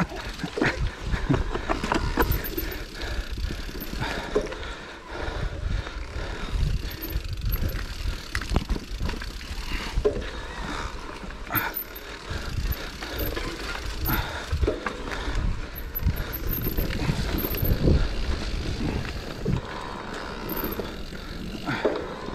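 Electric mountain bike riding a muddy, leaf-strewn dirt singletrack: tyres rolling over the ground and the bike rattling and knocking over bumps, over a steady low rumble.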